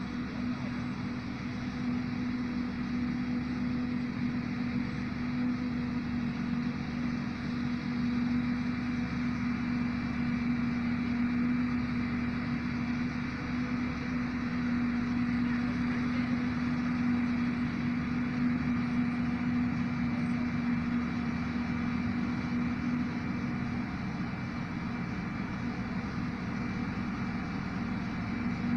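New Holland FX58 self-propelled forage harvester running steadily while chopping maize, with the engine of the tractor pulling the trailer alongside mixed in: a steady drone with a constant hum. The hum weakens a little near the end.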